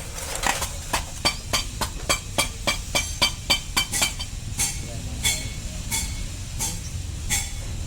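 Rapid metallic clicking, about four clicks a second, as the gearbox housing bolts are tightened with a wrench. The clicking thins out about four seconds in.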